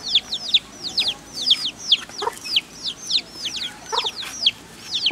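Chickens peeping: a rapid string of short, high notes, each falling in pitch, several a second without a break.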